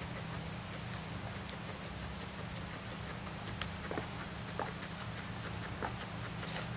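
Guinea pig rooting and nibbling in hay and making its small 'kopo-kopo' sounds: scattered soft clicks and hay rustles over a steady low hum.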